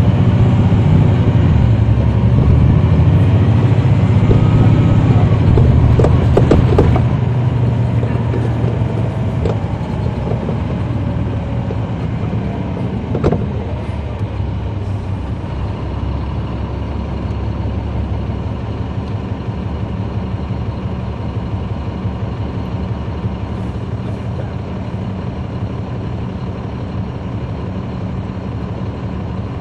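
Caterpillar C13 diesel engine of a 2009 NABI 40-SFW transit bus, heard close from the back seats, running loud under load with a rising whine for the first several seconds. It eases off about seven seconds in to a quieter, steady running, with a few rattles around then and a single sharp knock near the middle.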